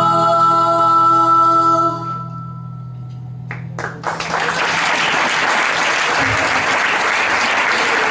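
The final held note of a folk song, a woman singing over acoustic guitar and upright bass, dies away about two seconds in. A moment later the audience breaks into steady applause.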